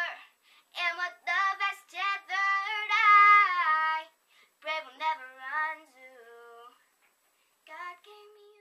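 A boy singing a song unaccompanied, in phrases of held and gliding notes, with a short break near the end before one more brief phrase.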